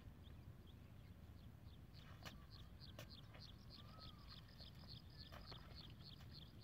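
Faint, rapid, even chirping: short high chirps about six a second, starting about two seconds in, over a low outdoor rumble, with a couple of faint clicks.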